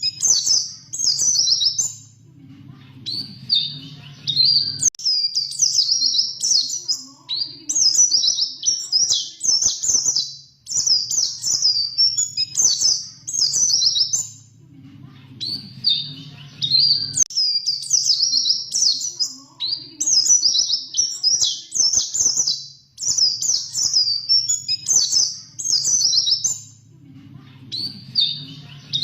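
Pleci (white-eye) singing: fast, high-pitched twittering and trilling phrases strung together in long rolling runs, broken by a few short pauses, over a faint low hum.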